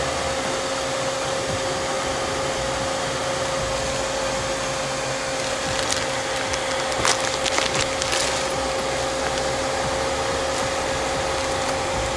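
Lada VAZ-21074 being driven: steady engine and road noise with a constant tone running through it, and a few short clicks and knocks about seven to eight seconds in.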